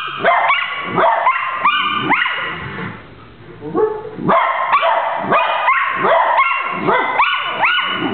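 Pet dogs howling and yipping together in their trained 'singing', many short overlapping calls that slide up in pitch, with a brief lull a little before halfway.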